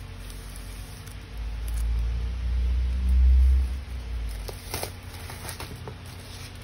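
A cardboard package box being handled on a table: a low rubbing rumble as the wrapped package slides out of its cardboard sleeve, loudest about three seconds in, then a few light clicks and crinkles of plastic wrap.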